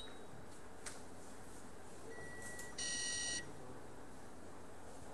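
A short electronic beep, about half a second long, just under three seconds in, led in by a fainter steady tone. There is a small click about a second in.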